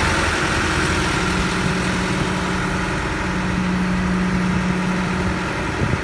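Engine of a Schwing Stetter SP1200 concrete pump running steadily with a constant hum, broken briefly near the end.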